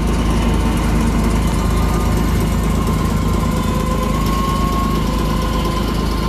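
Old electric trams rolling slowly past, a steady mechanical hum and rumble of motors and wheels on the rails.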